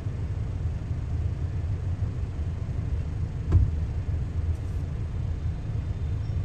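Steady low rumble of a car heard from inside its cabin, with a single short thump about three and a half seconds in.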